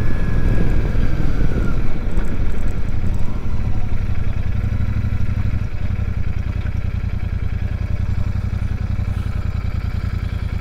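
Royal Enfield Super Meteor 650's parallel-twin engine running as the motorcycle rides along, then easing off to a steadier, slightly quieter low note about four seconds in as the bike slows.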